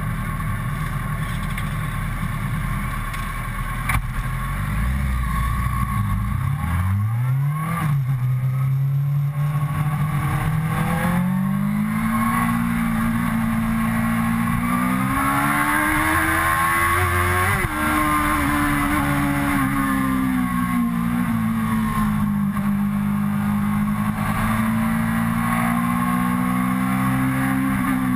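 Suzuki GSX-R sportbike's inline-four engine heard from on board: a low rumble at first, then revving up as it pulls away, with a quick drop in pitch at a gear change about eight seconds in. It climbs again to a second shift about halfway through, eases off, and picks up once more near the end.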